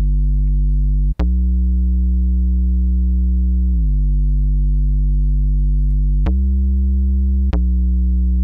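A plain Omnisphere synth bass sound played on its own: long sustained low notes, changing note a few times with short breaks between them, one change sliding slightly downward.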